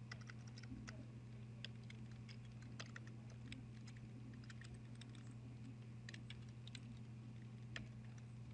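Computer keyboard typing: faint, irregular keystroke clicks, with a steady low hum underneath.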